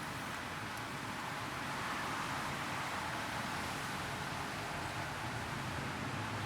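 Steady traffic noise heard from inside a car on a busy highway in the rain: an even hiss of tyres on wet road over a low engine rumble.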